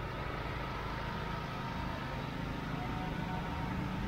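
Steady street traffic noise: motor vehicle engines running with a low rumble, swelling slightly near the end.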